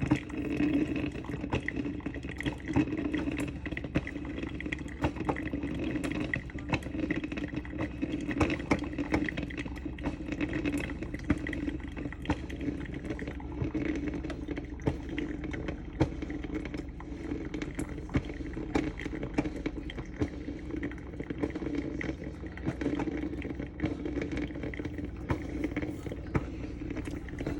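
Drip coffee maker heating and brewing a pot of plain water: a steady low hum with water bubbling and many small irregular pops and crackles.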